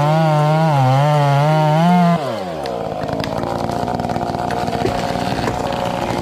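Stihl chainsaw at full throttle, its pitch wavering up and down as it cuts. About two seconds in the throttle is released and the revs fall away to a rough, lower idle.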